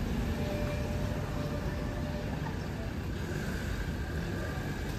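Steady rush of shallow water flowing over the stony bed of a small stone-walled canal, with a low rumble underneath.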